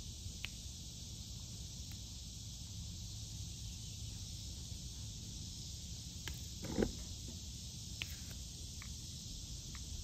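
Steady high buzz of cicadas, with scattered light clicks of a diamond-painting drill pen tapping resin drills onto the canvas and a brief louder clatter about seven seconds in.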